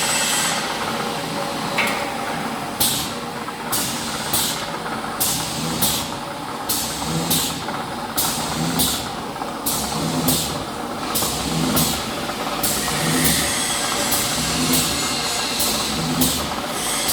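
Edge-grinding machine running with a steady motor hum. From about three seconds in, a short hissing scrape repeats about one and a half times a second.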